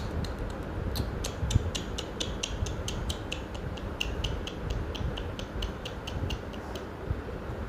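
A pet parrot giving a rapid series of short, high chirps, about four a second, starting about a second in and stopping near the end, over a steady low rumbling noise.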